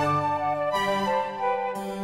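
Slow instrumental background music with held notes that change every half second or so.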